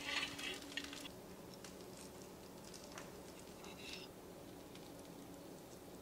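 Faint fork-on-plate sounds: a metal fork cutting through the crisp coconut crust of pan-fried salmon and scraping a ceramic plate, in soft brief scrapes and clicks over a low steady hum.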